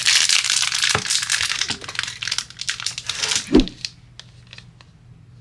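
Plastic crinkling and rustling as sports cards and their packaging are handled, with a soft knock about three and a half seconds in, then fainter light clicks.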